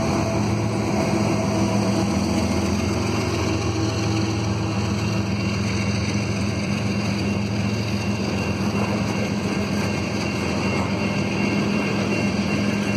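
Two GE ES44DC diesel locomotives hauling a freight train past, their engines giving a steady low drone over the rumble of the train rolling on the rails. A faint high steady tone joins about five seconds in.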